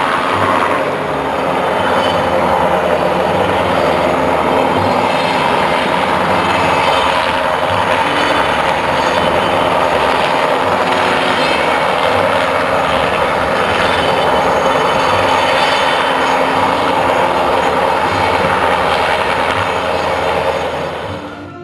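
Hovering helicopter's rotor and turbine engines running steadily, heard across the water as a loud continuous noise with a pulsing low end. It drops away near the end.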